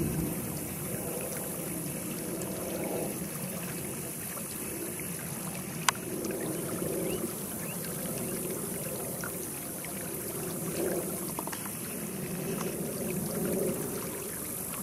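Outdoor background noise: a steady wash of noise with a lower rumble that swells and eases every few seconds, and one sharp click about six seconds in.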